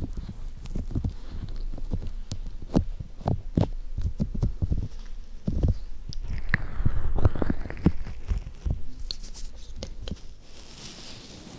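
Bare hands rubbing and pressing on the furry cover of a binaural microphone, giving a string of muffled, irregular low thumps and rubs, with a brushier, louder rub around the middle.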